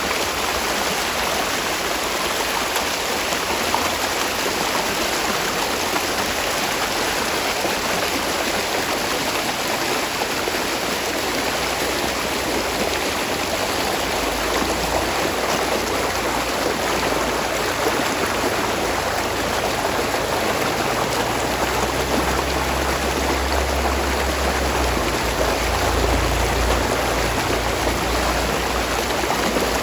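Spring water running steadily as a small rushing stream. A low rumble joins underneath about halfway through.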